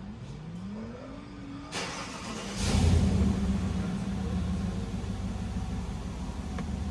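Dodge Charger Scat Pack's 6.4-litre (392) HEMI V8 being started after its oil change. A rising whine comes first, then the engine catches with a loud flare about two and a half seconds in and settles into a steady idle.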